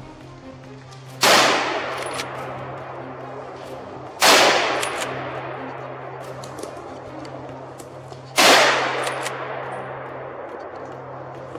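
Three rifle shots, about three to four seconds apart, each a sharp crack followed by a long echo rolling away through the forest.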